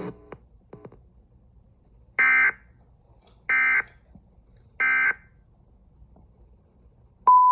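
Three short bursts of Emergency Alert System digital data tones, evenly spaced about a second and a quarter apart: the end-of-message code closing a tornado warning. Near the end a steady single high tone starts.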